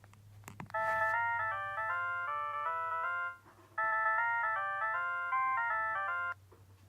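Sony Ericsson K700i mobile phone playing a polyphonic ringtone: a short melodic phrase of quick notes, with several notes sounding at once, played twice with a brief pause between.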